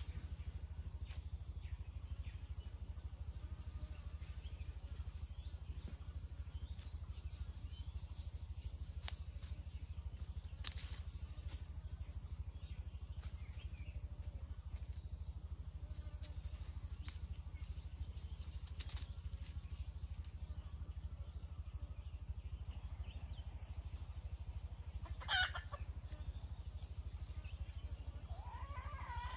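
Junglefowl calling: one short, sharp call near the end, then another call that begins right at the close. Under it is a steady low outdoor rumble with a few faint clicks.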